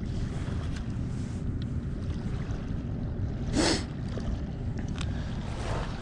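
Steady low rush of wind on the microphone and fast-flowing river water, with a short rustling noise about three and a half seconds in and a faint click or two near five seconds.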